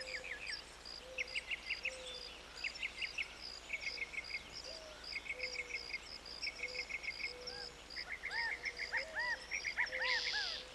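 Faint outdoor nature ambience: birds chirping in quick runs over an evenly repeating high insect-like pulse, with short calls rising and falling in arcs towards the end.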